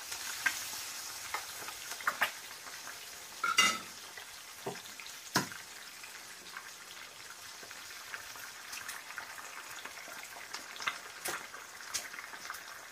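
Eggs and chapli kebabs frying in oil on a flat griddle: a steady crackling sizzle, with a few sharp clicks and pops, the loudest around three and a half and five and a half seconds in.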